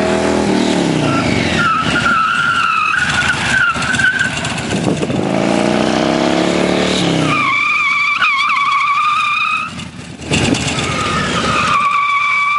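A Harley-Davidson Softail's V-twin engine revs as the bike comes in, then a tyre squeals three times as the 6-inch 360 Brake locks the wheel into skids on pavement. The squeals start about a second and a half in, at about seven and a half seconds, and at about eleven seconds. Each is a long steady high squeal, and the engine rises and falls between them.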